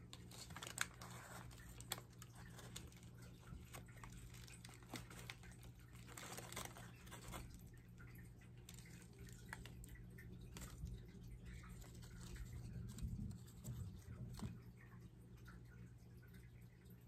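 Faint rustling and crinkling of paper wrapping as small rooted plants are handled, with scattered light clicks and taps over a steady low hum.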